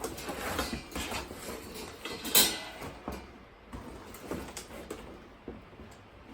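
Steel parts of a flat-packed metal shelf unit being handled and pulled out of their cardboard box: scraping and rustling, with one louder knock about two and a half seconds in, then quieter handling.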